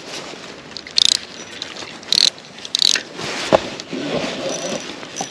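Spinning reel drag ratcheting in three short bursts, about a second in, near two seconds and near three seconds, as a hooked trout pulls line off the reel.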